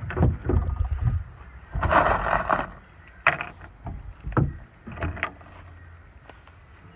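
Wooden knocks and thumps of pallet floorboards being handled and laid on a deck frame. There is a short scrape about two seconds in, then a few sharp wooden clacks spaced about a second apart.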